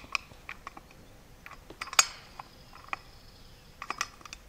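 Small clicks and taps of hands handling a brush cutter's two-stroke engine as two-stroke oil is worked onto the piston and rings, with one sharper metal clink about two seconds in that rings briefly.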